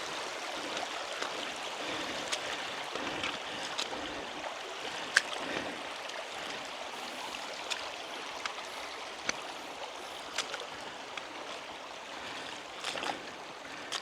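Shallow river running over stones: a steady rush of water. Scattered sharp knocks and splashes from wading across the stony riverbed, the sharpest about five seconds in and a few more near the end.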